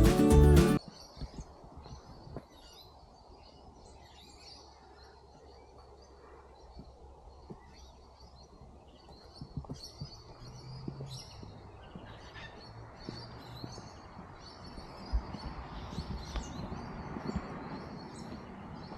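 Small birds chirping and calling again and again over quiet outdoor background noise.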